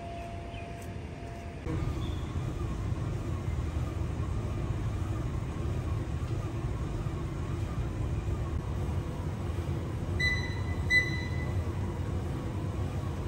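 An elliptical cross-trainer running under a steady stride: a low mechanical rumble with a faint whir that rises and falls with each stride. It takes over from a steady hum about two seconds in. Near the end the console gives two short electronic beeps as its buttons are pressed.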